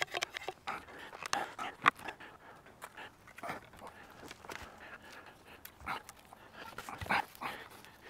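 Irregular wooden knocks, clicks and scrapes as the boards and legs of a plank camp table are handled and fitted together, with short rustling bursts; the sharpest knocks come about two seconds in and about seven seconds in.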